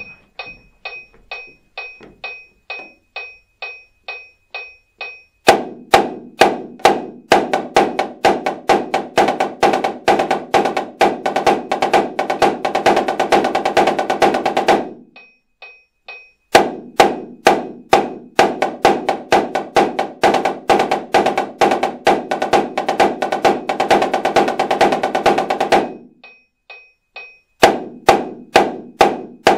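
A marching snare drum played in fast, dense exercise passages against a metronome clicking about two and a half times a second. The metronome clicks alone at first, then the drum plays two long runs of about ten seconds each with short click-only gaps between them, and starts again near the end.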